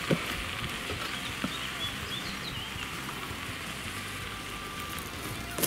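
Steady sizzling hiss of plastic airsoft BBs melting against a red-hot metal ball. Faint bird chirps come in midway, and there is a sharp click near the end.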